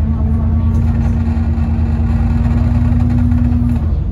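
Alexander Dennis Enviro 400 double-decker bus under way, heard from inside the passenger saloon: a steady low engine rumble with a steady whine on top that stops near the end.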